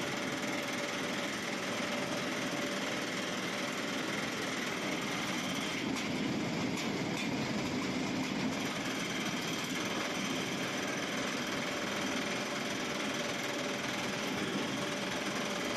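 Blast furnace taphole drilling machine running, a steady mechanical din with a faint hum. A few light clicks come through about six to eight seconds in.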